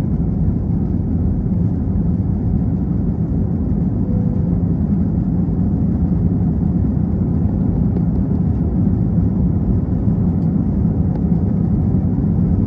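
Jet airliner engines at takeoff power heard from inside the cabin, a steady low rumble during the takeoff and initial climb.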